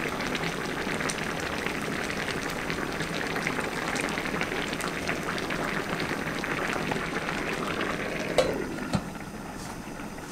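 Mackerel and aged-kimchi braise bubbling at a boil in a stainless steel pan. About eight seconds in come two sharp clinks as a glass lid goes on, after which the bubbling is quieter and muffled.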